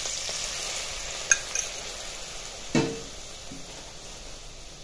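Milk poured into hot ghee in a non-stick kadhai, sizzling with a steady hiss that slowly dies down as the milk cools the fat. A light clink about a second in and a louder knock near three seconds.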